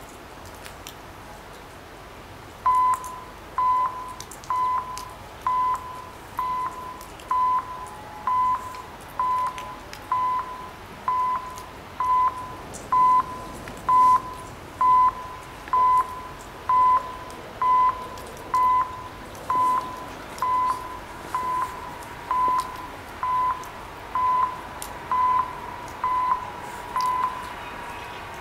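Railway level crossing warning signal sounding electronic beeps at a steady pace of about one a second, starting about three seconds in. Near the end the beeps stop and a fainter steady tone is left.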